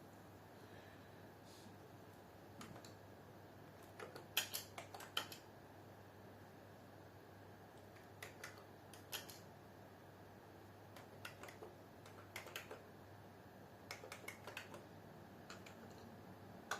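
Faint typing on a computer keyboard: several short runs of keystrokes with pauses between them.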